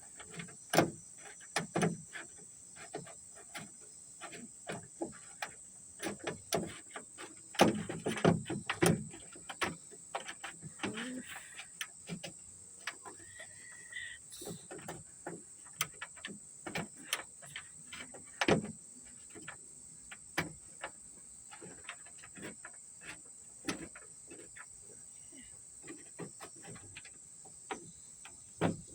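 Scattered clicks and knocks of hands and tools working loose bolts and the trunk latch of a car, over a steady high insect drone.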